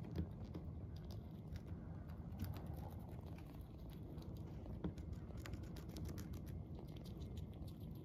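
Long-haired Syrian hamster gnawing and crunching a slice of raw carrot: an irregular run of small, crisp clicks.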